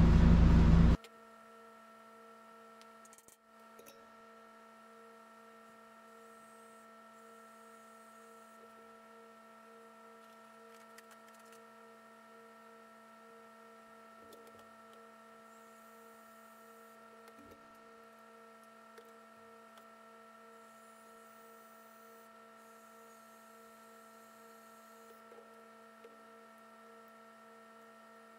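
Faint, steady electrical hum made of several fixed tones, one of them pulsing quickly. A louder sound cuts off abruptly about a second in, leaving only the hum and a few faint ticks.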